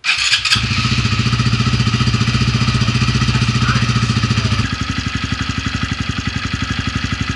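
Honda Grom's 125cc single-cylinder four-stroke engine idling through an aftermarket Yamamoto Spec-A titanium down exhaust with no baffle fitted, a steady even beat. About four and a half seconds in it settles to a slightly quieter, more distinct pulse.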